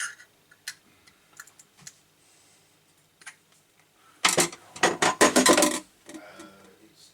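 Small parts and packaging being handled: scattered light clicks, then, about four seconds in, a loud rapid clatter and crackle lasting under two seconds, as a new tap insert kit is unpacked.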